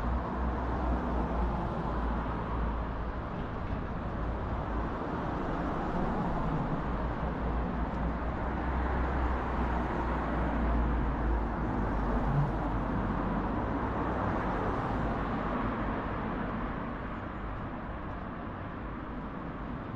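Street ambience: steady road traffic noise with a low rumble, swelling towards the middle as a car drives past, then easing off.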